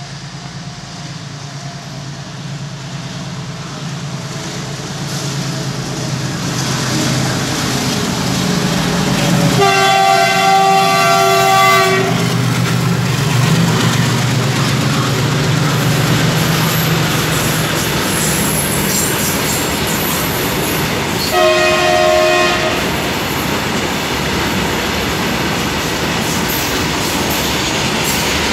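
A freight train running through: the locomotive's steady drone grows louder as it approaches. Its horn sounds a long blast about ten seconds in and a shorter one about twenty-one seconds in, then the wagons roll past with their wheels clattering over the rail joints.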